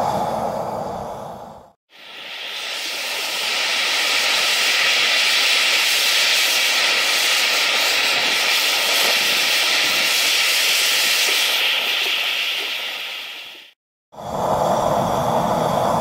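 Gas torch flames firing into a small furnace. A deeper, steady roar for under two seconds, then, after a sudden cut, a steady higher-pitched hiss of the MAP-Pro hand torch for about twelve seconds, then another cut and the deeper roar again.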